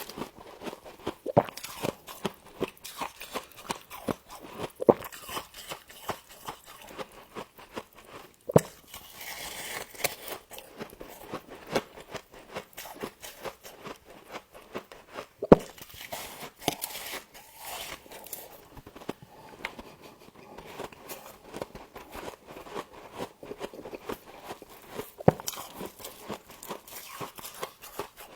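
Frost being bitten and chewed close to the microphone: a continuous run of irregular crisp crunches, with a few sharper, louder bites.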